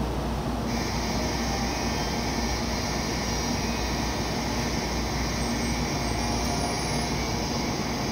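Station departure bell ringing steadily for about seven seconds, starting about a second in, over the low steady hum of an N700A Shinkansen standing at the platform ready to depart. The bell is the signal that the train is about to leave.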